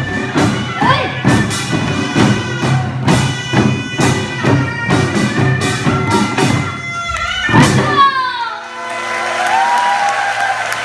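Korean traditional ensemble music: fast, regular drum strikes under a held, reedy wind tone and shouted or sung calls, closing with a final strike about eight seconds in. Audience applause and cheers follow.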